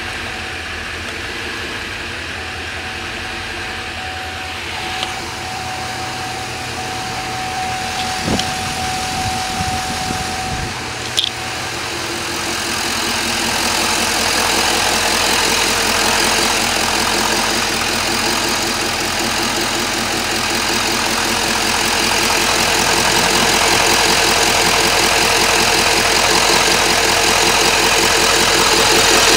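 A 6.6 L LML Duramax turbo-diesel V8 idling steadily, muffled at first. About eleven seconds in there is a sharp click, then the idle grows louder and fuller, with a fast, even diesel clatter, as it is heard up close at the open engine bay.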